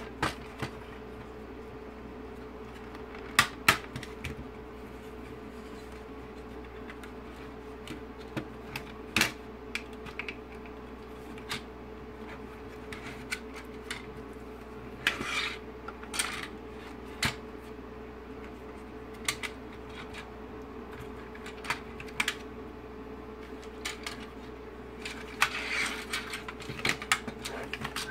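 Plastic instrument cluster housing being handled and turned over on a desk: scattered clicks and knocks of hard plastic, loudest around three and a half seconds in, with clusters about halfway through and near the end. A steady faint hum runs underneath.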